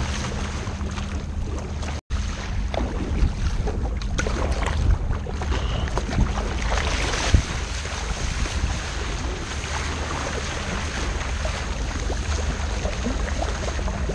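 Water rushing and splashing around a sea kayak's bow and paddle blades, under a steady rumble of wind on the microphone. The sound cuts out for an instant about two seconds in, and the splashing is loudest around seven seconds in, as the bow surfs a wave.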